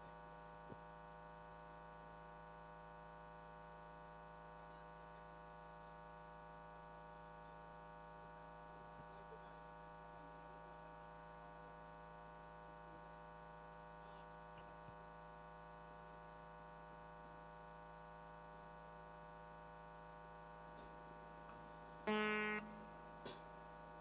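Faint, steady electrical mains hum from the sound system. About 22 seconds in, an electronic keyboard sounds one short note, followed by a click.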